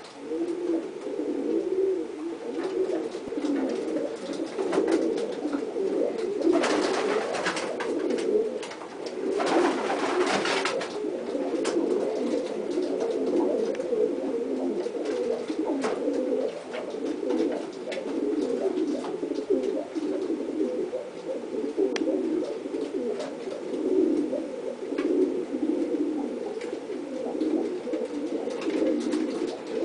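Pigeons cooing continuously, several calls overlapping in a steady, low warbling murmur. Two brief rustling noises come about a quarter and a third of the way in.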